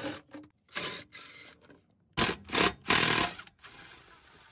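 Cordless impact driver hammering bolts loose in short bursts, three or four brief runs of rapid rattling, with pauses between them.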